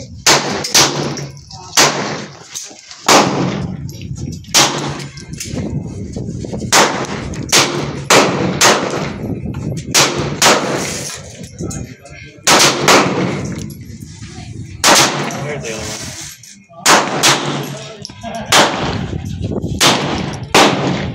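Gunshots on a shooting range: about two dozen sharp shots at uneven intervals, from under a second to about two seconds apart, some in quick pairs, each with a short ringing tail.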